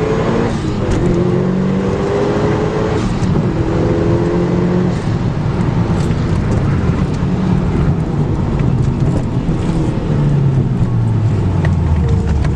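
Mitsubishi Lancer Evolution VI Tommi Mäkinen Edition's turbocharged four-cylinder engine heard from inside the cabin, revs rising in several short pulls as the car is driven hard. Near the end the revs fall and the engine settles to a steady low note.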